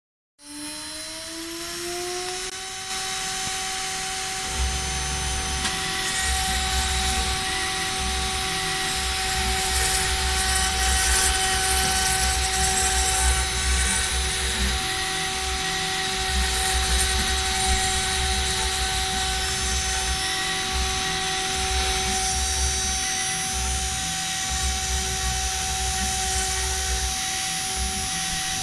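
CNC router spindle spinning up with a rising whine, then running at a steady high whine while its end mill cuts a wooden cylinder turned on the rotary axis. A rough grinding rumble from the bit biting into the wood comes and goes as the cut proceeds.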